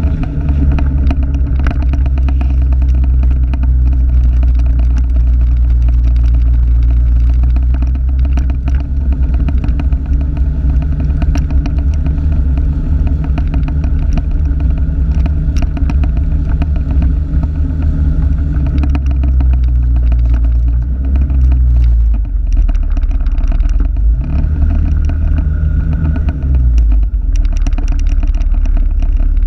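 Motorcycle engine running while riding, steady at first, its pitch falling as it slows about twenty seconds in, then rising briefly and falling again. Short rattling clicks run throughout, the abnormal noise that the rider points out.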